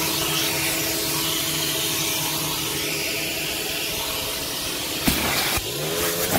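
Coin-operated car-wash vacuum running with a steady hiss and hum as its nozzle sucks at shampoo-foamed car carpet. About five seconds in there is a knock, after which the suction's tone rises in pitch.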